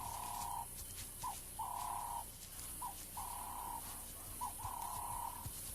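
A bird calling over and over: a long, even, mid-pitched note followed by a short swooping note, the pair repeating about every one and a half seconds.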